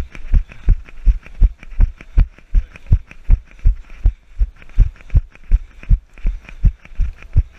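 A runner's footfalls thudding through a body-worn GoPro, a steady run of heavy low thumps at a jogging stride of nearly three a second.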